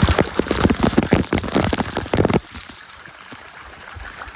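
Falling water splashing and pattering close to the microphone, dense and irregular, then dropping off suddenly a little over two seconds in to a softer wash.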